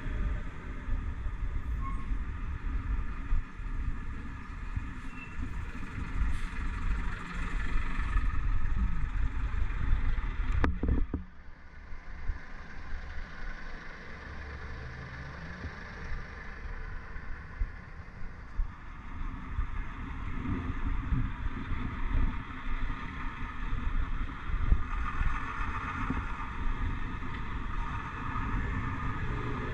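Busy city traffic heard from a bicycle riding close behind a bus and cars: vehicle engines running over a steady low rumble. A sharp click comes about ten and a half seconds in, after which it goes quieter for several seconds before the traffic noise builds again.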